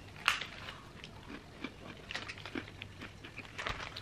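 Rustle of a Hide & Seek chocolate-chip biscuit packet as a biscuit is pulled out, with one sharp crackle just after the start. Then a few small crunches of the biscuit being bitten and chewed, with a short cluster near the end.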